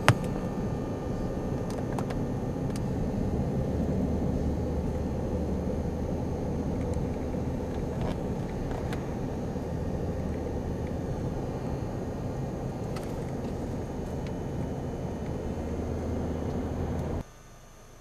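Steady rumble of a moving vehicle, engine and road noise, with a few faint ticks; it cuts off abruptly near the end.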